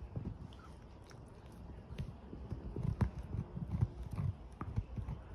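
Small dog gnawing a piece of wood, its teeth crunching and clicking on the wood in an irregular run. It is sparse at first and grows denser and louder about two seconds in, with a few sharp cracks.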